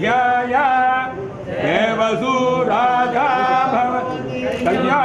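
Men chanting a Tamil devotional hymn to Perumal (Vishnu), a melodic recitation with held notes that rise and fall in pitch.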